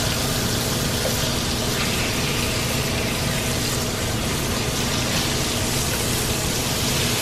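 Sheepshead fillets sizzling in melted butter in a frying pan, a steady hiss, with a low steady hum underneath.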